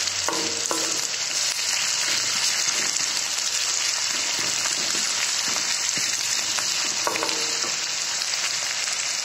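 Sliced onions sizzling steadily in hot mustard oil in a metal kadhai, with a few light scrapes and taps of a wooden spatula stirring them.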